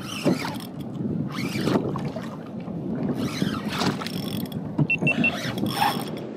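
Choppy seawater slapping and splashing against a fishing kayak's hull in irregular washes.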